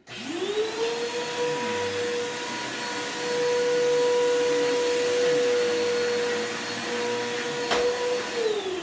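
Bissell Power Force Bagless upright vacuum cleaner switched on: the motor spins up quickly and runs steadily at one pitch. Near the end it is switched off with a click and the motor winds down, its pitch falling.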